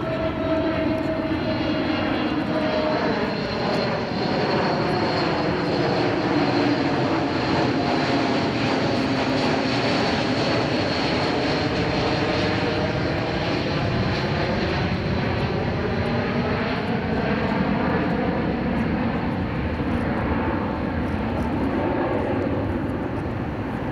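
Airbus A321XLR airliner flying past overhead and climbing away, its twin turbofan jet engines running with a steady jet roar. A phasing whoosh runs through it, its pitch slowly bending down and back up as the aircraft moves across the sky.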